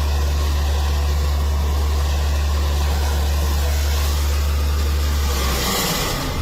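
An engine running steadily with a deep, even hum. Near the end the hum breaks up and a hiss rises.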